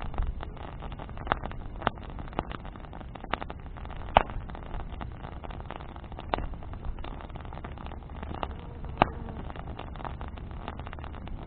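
Wood bonfire crackling, with sharp single pops every second or two over a steady low rumble; the loudest pop comes about four seconds in.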